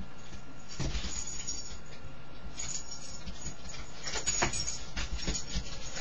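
Dogs moving about close by: irregular soft scuffling and rustling noises over a steady hiss, with louder bursts about a second in, around the middle and near the end.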